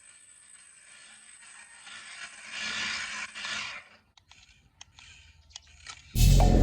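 Scraping and crinkling of toy packaging being handled, loudest about three seconds in, then a few light clicks. Music with a beat starts suddenly near the end.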